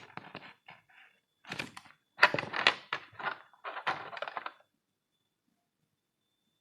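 Handling noises from unboxing a parcel: an irregular run of knocks and rustles, loudest a little over two seconds in, stopping about four and a half seconds in.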